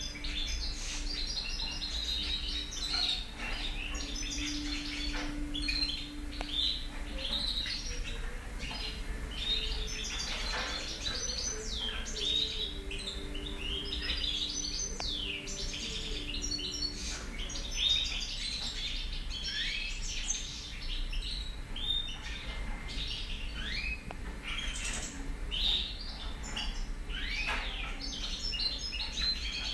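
European goldfinch singing: a continuous run of fast, high twittering notes and trills with quick up-and-down sweeps, never breaking off.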